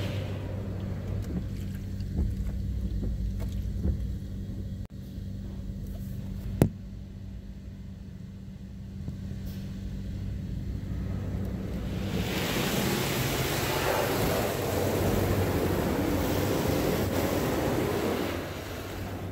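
High-pressure water spray from a PDQ LaserWash G5 touchless car-wash arm drumming on the car, heard from inside, over a steady low hum. The spray rush grows much louder about twelve seconds in as the arm passes overhead and drops off near the end. There is one sharp knock about six and a half seconds in.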